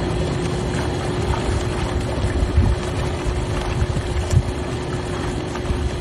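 Hot tub jets running: a steady churning of water with a constant pump hum underneath.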